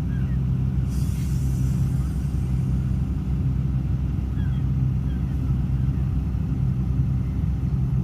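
Excavator's diesel engine running steadily, a low drone whose hum swells and eases every second or two as the load changes.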